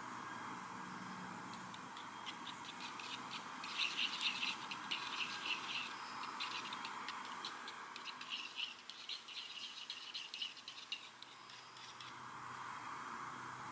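Primer or cement dauber scrubbed onto PVC pipe: a rapid run of small scratchy clicks lasting several seconds, loudest in the middle, over a steady background hiss.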